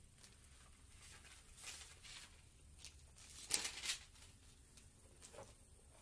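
Pages of a Bible being turned and rustled by hand: a few faint rustles, with a louder flurry of page turning about three and a half seconds in.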